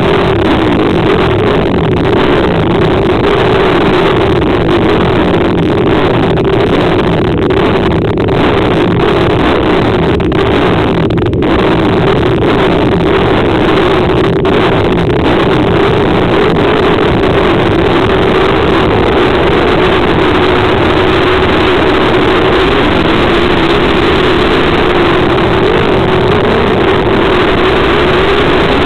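Dirt short-track racing motorcycles running hard around the track: a loud, steady engine drone that wavers a little in pitch and never lets up.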